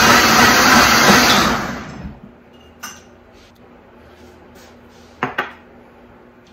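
Vitamix blender running loud at high speed on its smoothie program, then winding down and stopping about two seconds in as the program ends. After it, a few light knocks of glass mason jars and lids set on the counter, two close together a little past the middle.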